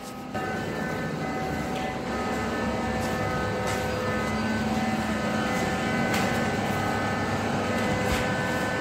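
Airless spray machine's motor running steadily, a hum with several steady whining tones and a few faint clicks.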